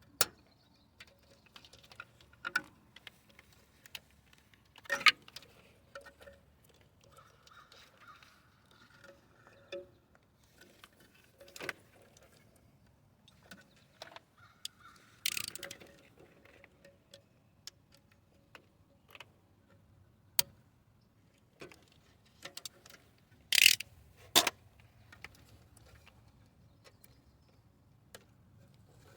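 Scattered sharp metallic clicks and clinks of a 10mm wrench and metal ground-wire terminals being handled while the terminal bolts are undone, with the loudest pair of clinks near the end.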